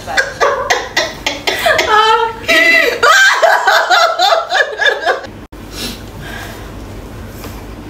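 Several women laughing and giggling in choppy, wavering peals, which stop abruptly about five and a half seconds in and leave only faint room sound.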